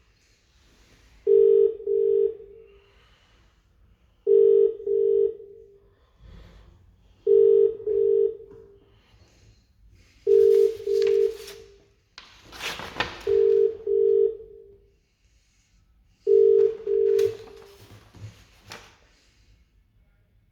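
British telephone ringing tone heard through a phone's loudspeaker: six double "brr-brr" rings, one every three seconds, while a call to a police non-emergency line waits to be answered. A few short bursts of rustling noise come between the later rings.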